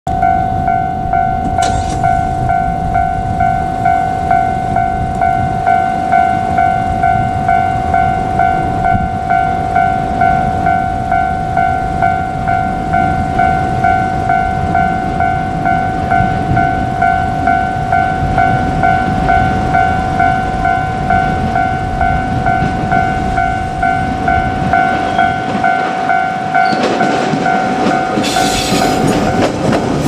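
Japanese level-crossing warning bell ringing: an electronic ding repeating about one and a half times a second. Near the end the running noise of a JR Kyushu 817 series electric train rises sharply as it reaches the crossing.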